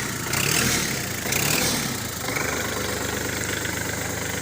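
Kubota L4018 tractor's diesel engine running. It swells louder twice in the first two seconds, then settles to a steady idle with an even, fast pulse.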